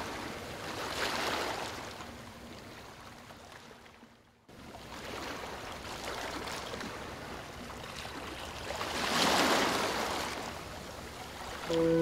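Ocean waves washing in slow swells of rushing surf, one rising about a second in and a bigger one near the end. The surf dies away almost to nothing just after four seconds and comes back suddenly.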